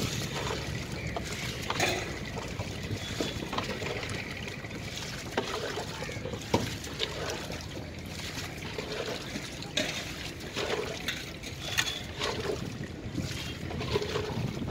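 Water scooped and poured from a plastic jug, splashing and trickling into the fish-filled hold of a wooden boat, with a few sharp knocks over a steady low rumble.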